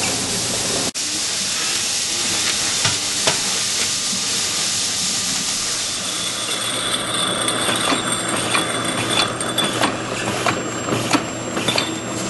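Automatic labeling machine and conveyor running with a steady whir and hiss. From about halfway there are frequent light clicks and knocks as the jars are carried through and labelled.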